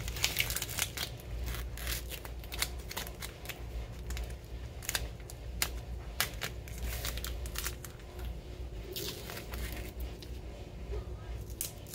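Adhesive vinyl being weeded: a pointed weeding tool picks at the cut vinyl and strips it off its backing paper, giving irregular crackling and ticking, with the waste vinyl scraps crinkling in the hand.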